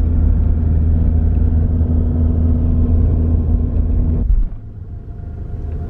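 Car engine and road noise heard from inside the cabin while climbing a steep hill road, a steady low hum with a droning tone. A little over four seconds in it drops sharply to a quieter drone.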